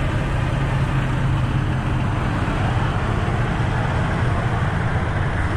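A vehicle driving on a road: a steady low hum from the engine and drivetrain under an even rush of tyre and road noise.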